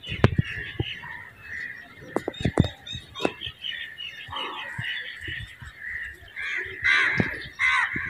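Birds chirping and chattering in a continuous busy stream, with scattered sharp clicks and knocks in the first half and a few louder calls near the end.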